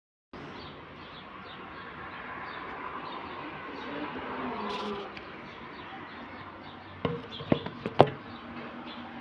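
Short high chirps repeating a few times a second over a steady background hum, with three sharp knocks near the end, the last the loudest.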